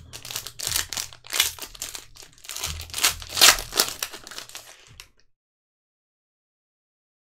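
Foil trading-card pack wrapper crinkling and tearing as it is opened by hand, for about five seconds, then stopping.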